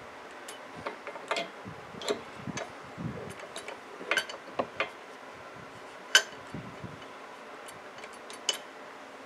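Light, irregular clicks and taps of small metal parts as a small engine's carburetor throttle linkage is handled and fitted by hand and with pliers.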